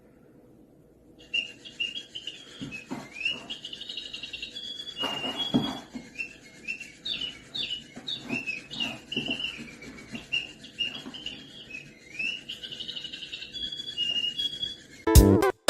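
A small bird chirping and twittering in quick, high, repeated calls and short trills, with a few soft knocks or rustles in between.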